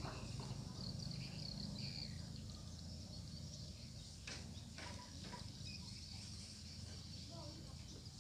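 Outdoor ambience of insects chirring steadily, over a low steady hum, with a few faint clicks about four to five seconds in.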